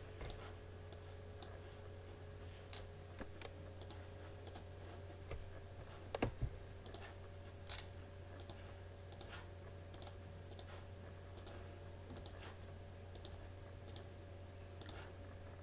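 Computer mouse clicking now and then while sketch lines are placed, over a low steady hum. Just after six seconds in there are two quick louder knocks.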